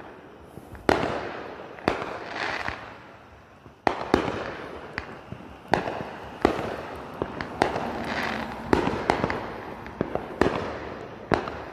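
Aerial fireworks bursting overhead: about eight sharp bangs at irregular intervals, each trailing off into crackle and echo.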